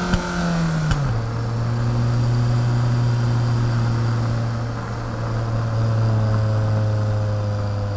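Four-cylinder sports car engine: its note drops quickly from a higher pitch about a second in, with a few sharp clicks around the drop, then it runs steadily at a lower pitch that sags slowly.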